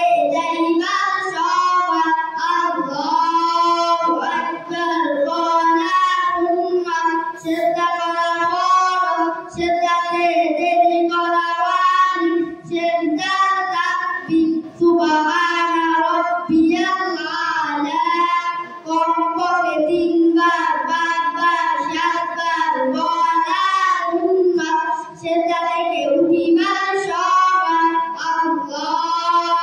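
Two boys singing a Bangla Islamic song together into microphones, amplified through a PA, in long sung phrases with brief pauses for breath.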